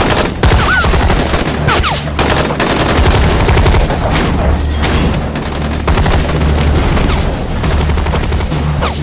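Sustained battle gunfire: rifles and machine guns firing in dense, irregular volleys, with a few short falling whistles among the shots and a low steady drone underneath.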